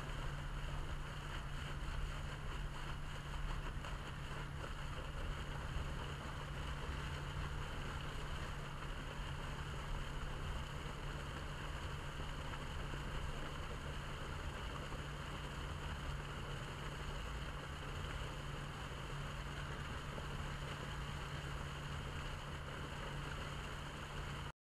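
Irrigation main line being flushed: water rushing and splashing steadily out of an open pipe riser onto wet ground, over a steady low rumble. It cuts off abruptly at the very end.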